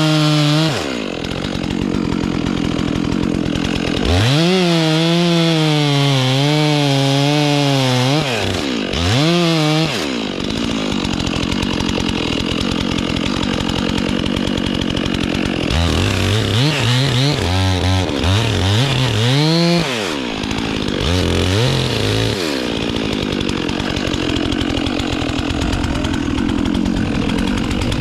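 Chainsaw at full throttle cutting into a pine trunk. The engine pitch sags and recovers as the chain bites, and the throttle is eased off and opened again several times, with long stretches of loaded cutting in between.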